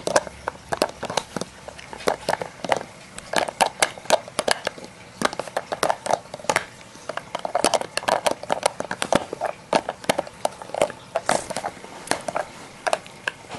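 A dog nosing and mouthing a Kyjen Paw Hide plastic treat-puzzle toy: a busy, irregular run of clicks and knocks of hard plastic and teeth, several a second.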